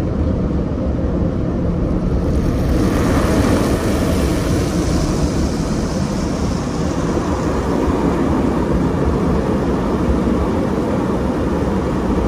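Drive-through automatic car wash heard from inside the car's cabin: a steady low rumble of the wash machinery, with a hissing rush coming in about two and a half seconds in.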